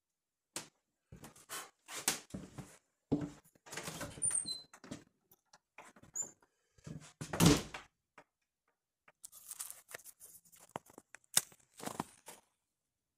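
Irregular knocks, thuds and short rustles, as of things being handled in a small room. The loudest thump comes about seven and a half seconds in.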